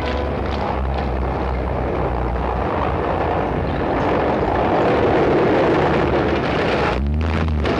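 Wartime British Army lorries and tracked carriers driving past in a column, their engines running with a heavy, steady rumble that grows louder in the middle.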